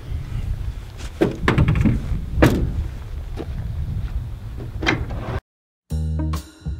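Several knocks and thumps over a steady low rumble, then a sudden cut to silence and music with a steady beat starting near the end.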